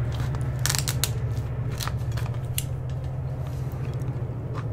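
Low, steady rumble of a passing train, with scattered sharp clicks and crackles over it.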